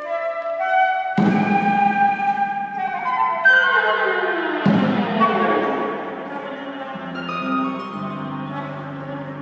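Flute, viola and concert harp playing contemporary chamber music together: a quick rising run of short notes, then about a second in a sudden loud chord whose ringing slides downward in pitch, a second strong chord near the middle, and low held notes near the end.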